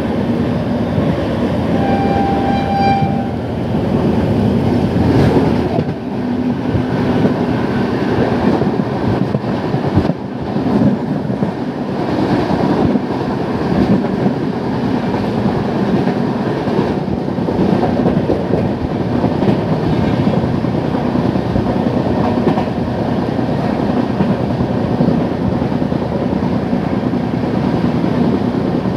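Running noise of a moving Indian Railways passenger train, heard from an open window, with wheels clattering over the rail joints. A short horn blast sounds about two seconds in, and another train rushes past close by on the adjacent track around the middle.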